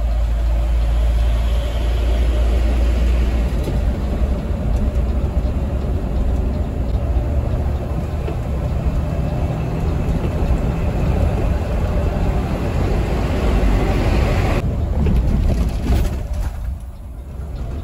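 Mercedes-Benz 1626 coach travelling at speed: a steady deep engine rumble with road and wind noise, dipping briefly near the end.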